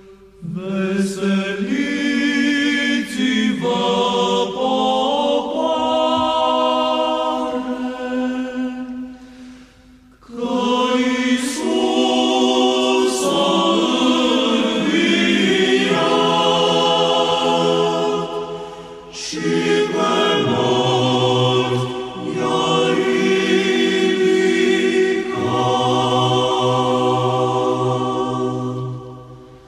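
A choir singing Orthodox church chant in long held phrases with short breaths between them; in the later phrases a low note is held steady beneath the melody.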